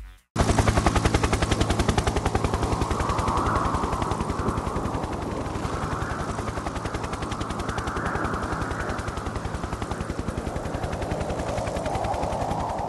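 FPV quadcopter motors and propellers heard through the onboard camera: a fast, even buzzing rattle whose pitch rises and falls with throttle.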